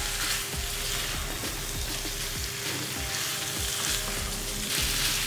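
Chicken pieces sizzling as they fry on high flame in a pan, stirred with a spatula in light scraping strokes, the last of their water cooking off.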